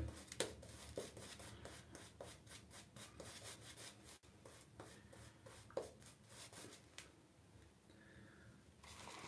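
Faint, quick scratchy strokes of wet shaving over lathered four-day stubble, dying away after about seven seconds.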